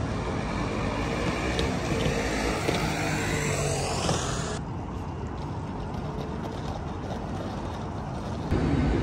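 City street traffic noise: a passing vehicle with a motor whine rising in pitch, which changes abruptly to a quieter, steady traffic hum about halfway through.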